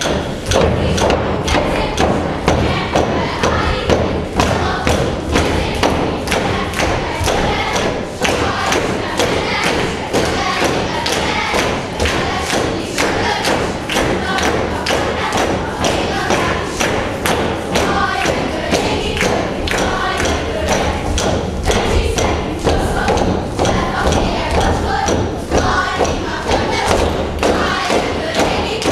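Folk dancers stamping on the stage floor in a steady, even beat, with a group singing over it.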